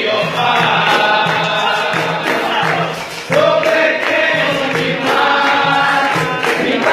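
Gospel capoeira music: a group singing over berimbau accompaniment, with a low note repeating at a steady rhythm.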